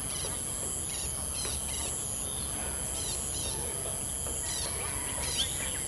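Outdoor insect chorus: a steady high-pitched trilling, with short chirps breaking in every second or so, over a low steady rumble.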